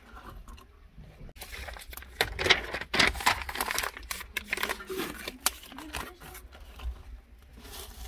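Dry grass and sticks rustling and crackling in the firebox of a clay tandoor as kindling is pushed in and catches fire: a dense, irregular run of crackles, loudest about three seconds in.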